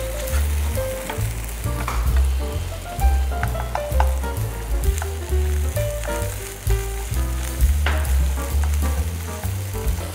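Mixed vegetables sizzling in a frying pan as a spatula stirs them, with a few sharp taps of the spatula against the pan. Background music with a heavy bass line plays under it.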